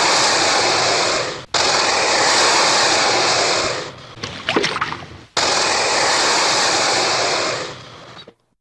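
Alligator hissing: a long, loud breathy hiss that ends about a second and a half in, then two more hisses of over two seconds each, each starting suddenly and fading at the end. Short, rough sounds come between the second and third hiss.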